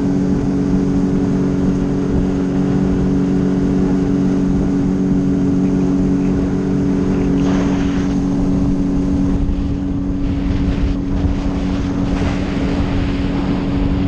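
Sea-Doo personal watercraft's engine running at a steady cruise, with wind on the microphone and the rushing hiss of water spray, which swells about eight seconds in and again near the end.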